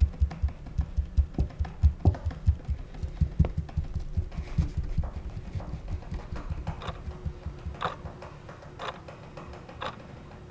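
Fingers drumming rapidly and unevenly on a wooden chair arm, heard as low thuds several times a second that fade out over the first two-thirds. From about seven seconds in, a wall clock ticks once a second.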